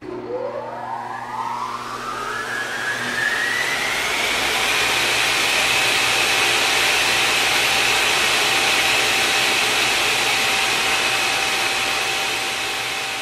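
An electric motor spinning up over about four seconds, its pitch rising and levelling off into a steady high whine, then running steadily over a loud rushing hiss that eases off slightly near the end.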